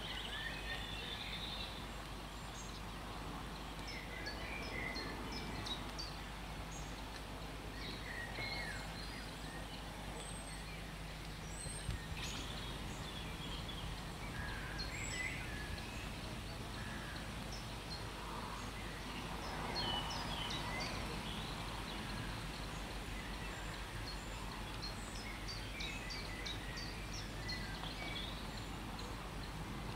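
Outdoor ambience of small birds chirping and calling on and off over a steady low background noise, with one brief sharp tick partway through.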